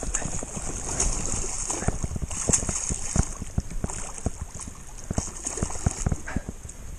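A small hooked wels catfish being played at the bank: water splashing, with many irregular sharp clicks and knocks over a steady high hiss.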